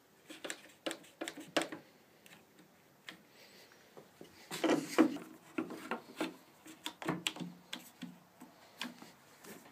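One-handed trigger bar clamps being set and tightened on a wooden board lying on a table saw's top: a string of short clicks and knocks in bunches, the loudest cluster about five seconds in.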